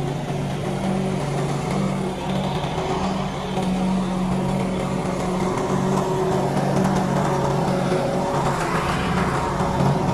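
Lawn mower engine running steadily.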